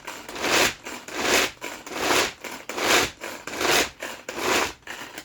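A Tupperware pull-cord chopper being pulled again and again, about one pull every 0.8 s. Each pull gives a whirring rasp as the blades spin through basil, garlic and almonds for pesto.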